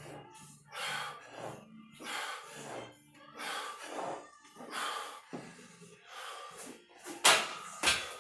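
Forceful, rhythmic breathing, a hard breath about every second and a half with each rep of a split squat. Near the end come two sharp, loud knocks, the second with a deep thud.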